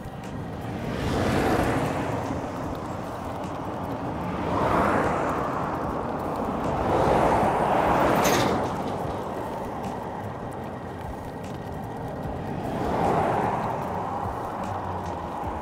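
Road traffic going by: several vehicles pass one after another, each a swell of tyre and engine noise that rises and fades, about a second and a half in, at five seconds, around seven to eight seconds, and near thirteen seconds.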